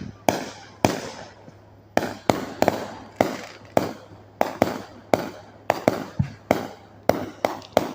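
Fireworks going off in a rapid, irregular string of sharp bangs, two or three a second, each trailing off in a short rumbling decay.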